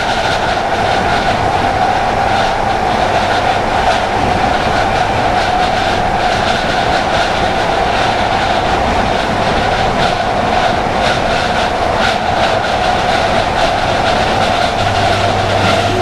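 Class 319 electric multiple unit at speed, heard from inside the carriage: its traction motors whine with a steady two-note tone over the rumble of the wheels, with a light clatter of wheels over rail joints.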